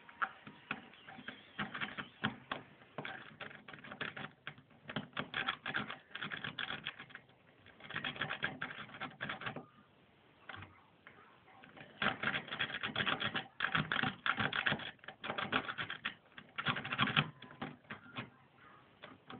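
Lock pick working inside a car boot lock under tension: rapid metallic clicking and rattling in bursts of a second or two, with short pauses between them.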